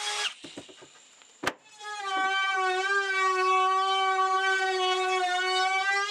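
Milwaukee M18 FUEL cordless compact router running at high speed, a steady high whine, rounding over the edges of wooden cabinet parts. It cuts out just after the start, there is a sharp click about a second and a half in, and the router starts up again about two seconds in.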